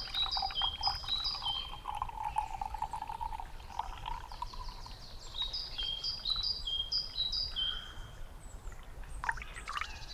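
Liquid poured in a thin stream into a mug, its tone rising slowly as the mug fills. Birds sing behind it: a phrase of short clear whistled notes stepping down in pitch, heard twice, and a light knock near the end.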